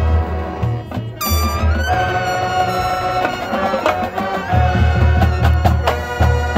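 High school marching band playing: brass holding chords over repeated drum hits, with a deep bass that drops out in the middle and comes back near the end.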